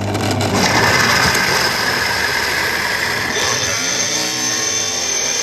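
Blender motor running at speed, pureeing a jar full of raw chopped tomatoes, cucumbers and peppers into soup. The whirring rises in pitch about half a second in and shifts again around three seconds in, adding a high whine.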